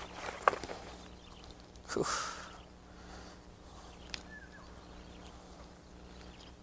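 Handling sounds of a landed barramundi held on a metal lip grip while pliers work the lure free: a sharp click about half a second in, a short breathy rush about two seconds in, and another click about four seconds in.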